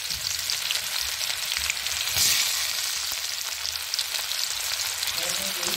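Freshly added sliced onions and dried red chillies sizzling in hot oil in a kadhai: a steady frying hiss that swells about two seconds in.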